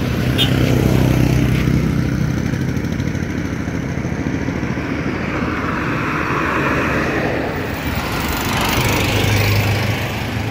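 Road traffic passing on a bridge: a motorcycle engine goes by near the start, a car passes with a swell of tyre noise about six seconds in, and a heavier engine hum comes up near the end.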